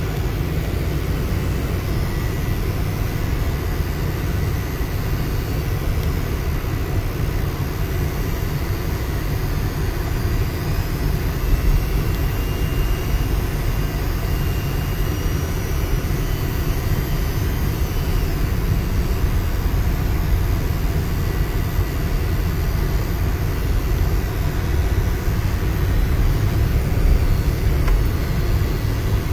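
Vehicle driving slowly along a rough dirt track, heard from inside the cab: its engine and tyres make a steady low rumble.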